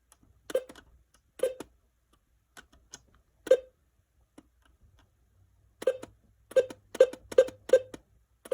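Buttons being pressed on an Alert Works EAR-10 weather radio while an alert name is entered letter by letter: short sharp clicks, a few spread out, then a quick run of five about a second and a half before the end.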